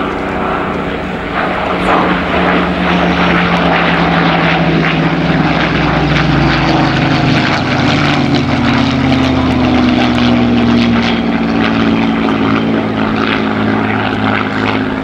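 Second World War Spitfire fighters' V-12 piston engines droning in a flypast, the engine note falling slowly in pitch as they go by.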